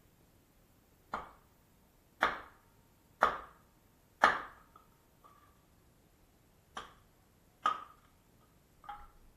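A hammer striking steel, with a short metallic ring after each blow: four blows about a second apart, the fourth the loudest, then a pause and three more.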